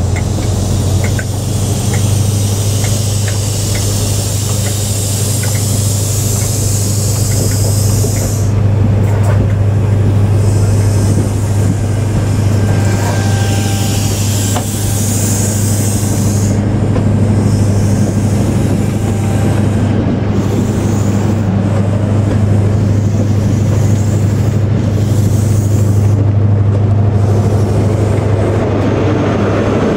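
Diesel train engine idling at the platform with a steady low drone. A loud hiss sits over it for about the first eight seconds and comes back briefly around the middle.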